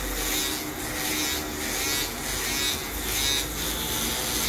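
Barber's electric foil shaver buzzing as it is pressed against the skin of the nape, shaving the leftover hair below a skin fade down to bare skin. The buzz swells and fades about once a second with the strokes.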